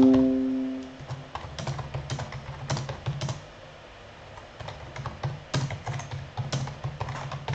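Typing on a computer keyboard: irregular key clicks as a sentence is typed out. A held musical note fades out during the first second.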